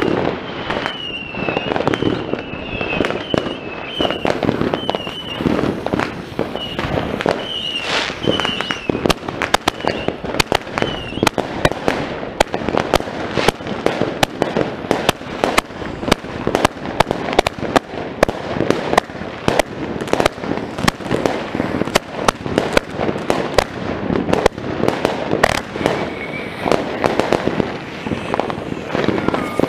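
A firework cake (box) going off: a rapid run of bangs and crackling shots, several a second, with short whistles mixed in over the first ten seconds or so. The shots grow denser after about twelve seconds.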